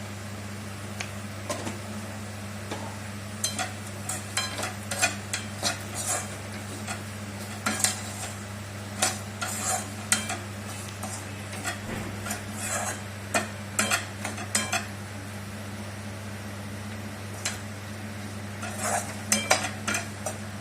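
A metal ladle stirring and scraping in a pan of vegetables frying in oil, in irregular bursts of clinks with a short lull near the end, over a steady low hum.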